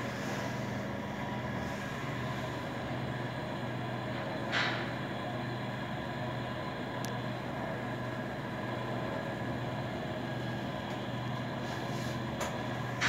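KONE passenger elevator car travelling downward: a steady running hum with a few level tones. A brief swish comes about four and a half seconds in, and there are a couple of clicks near the end as the car reaches the ground floor.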